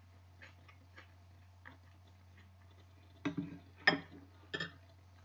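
Eating sounds: a few faint clicks, then three short, sharp clinks of a utensil against a dish a little past three seconds in, over a faint steady low hum.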